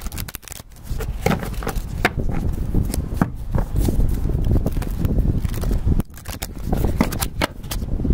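A deck of tarot cards being shuffled and handled: a fast run of light clicking and slapping card sounds over a low rumble.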